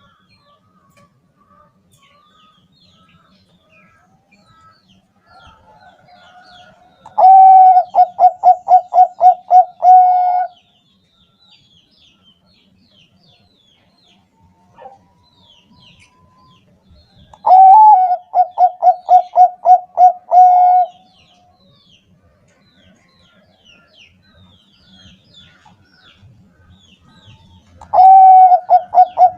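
Bangkok zebra dove (perkutut) cooing: three song phrases about ten seconds apart, each a quick run of about ten evenly spaced notes at one pitch lasting around three seconds, the last cut off at the end.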